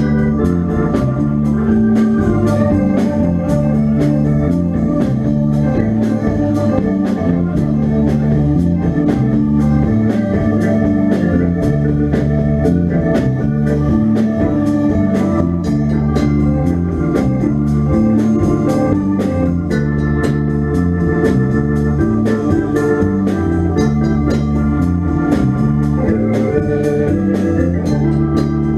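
Rock band playing a riff led by an electric organ, over bass and drums that keep a steady beat, without singing.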